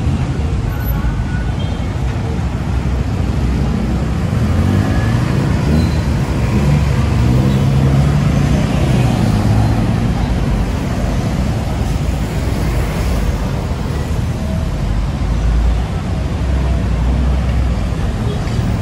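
Busy road traffic: several motor vehicle engines running and passing close by. One engine's note rises and falls near the middle.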